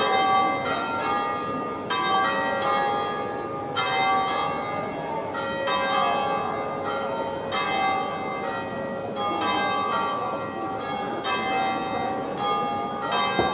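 Three large cathedral church bells swung full circle on wheels in an Italian 'distesa' peal, each struck by its clapper as it swings over, the strokes coming every second or less and overlapping into a continuous ringing.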